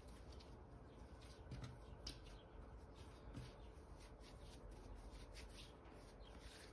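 Faint, irregular soft pats and rustles of hands kneading and rounding a ball of bread dough on a floured tabletop.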